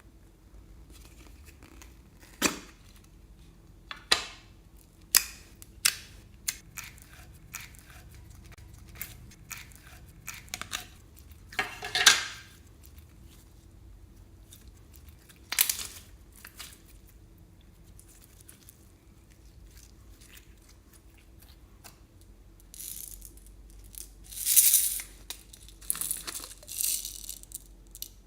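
Scattered sharp clicks and taps with brief crinkling, from items being handled and mixed into slime, then a run of crinkling and rustling near the end.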